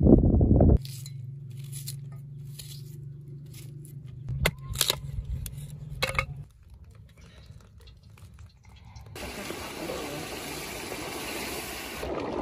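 A few sharp strikes of a hatchet splitting firewood over a low steady hum, then a steady hiss of meat and vegetables sizzling in a pot.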